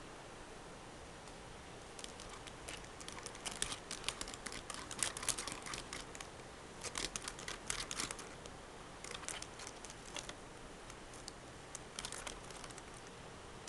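Scratchy rustling and clicking in irregular bursts as a kitten paws and scuffles on carpet beside a laptop, its fur brushing close to the microphone.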